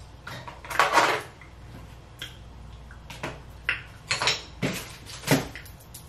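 Mukbang eating sounds at a table of oysters and snow crab legs: a string of short clatters, clicks and noisy bursts from shells and dishes being handled. The loudest comes about a second in.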